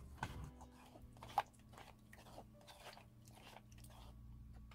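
Wooden spatula stirring and pressing thick persimmon puree through a stainless mesh strainer: faint, irregular wet clicks and scrapes, one a little louder about a second and a half in.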